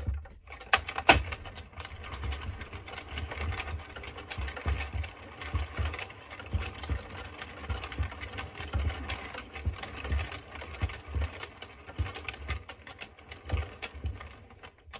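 Addi Express King Size circular knitting machine cranked slowly by hand while cotton yarn is cast on: a continuous run of plastic clicks and clatter from the needle ring, with soft low knocks.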